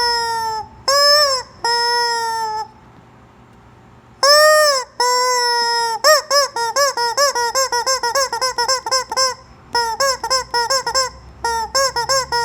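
Rubber chicken squeak toy being squeezed, giving loud honking squawks. First come several long drawn-out squawks, then a pause, then two more long ones. From about six seconds in, a rapid run of short squeaks follows, several a second, broken by brief gaps.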